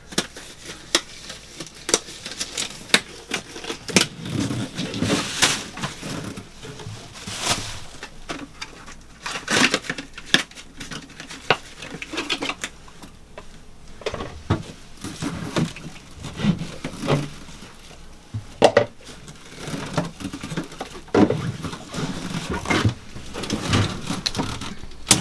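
Handling noises: scattered, irregular clicks, knocks and rustles of hands working with gloves, packaging and parts around a generator.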